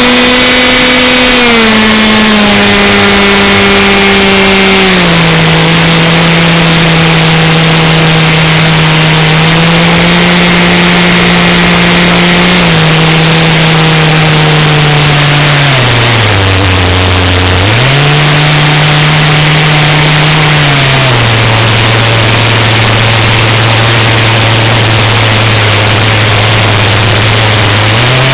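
An engine running at a series of steady speeds, its pitch stepping down several times, dipping low briefly about two-thirds of the way through, then rising back, over a loud steady rushing noise.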